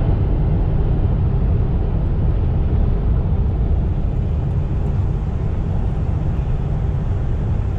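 Car driving at speed: a steady, loud rumble of road and wind noise.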